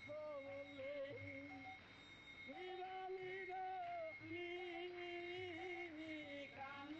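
Devotional background music: a voice singing long held notes, with a short break about two seconds in, over a steady backing tone.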